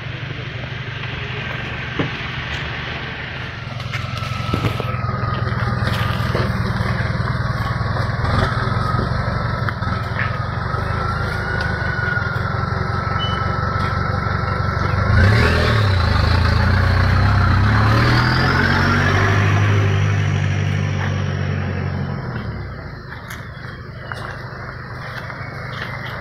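Toyota Land Cruiser four-wheel-drive engine pulling through mud and over logs in low gear, with a thin high whine over the engine note. About fifteen seconds in it revs harder as the truck climbs out, then eases off shortly before the end.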